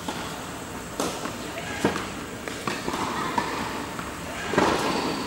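Tennis ball being volleyed with a racket and bouncing on an indoor hard court: several sharp pops, loosely spaced about a second apart.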